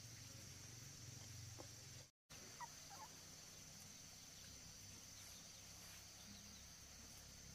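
Faint, steady, high-pitched drone of insects over a low background hum, broken by a brief dropout about two seconds in, with a few faint short chirps just after.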